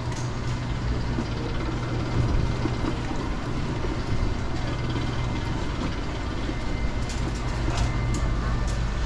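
A steady low mechanical hum under a constant wash of background noise, with a few faint ticks near the end.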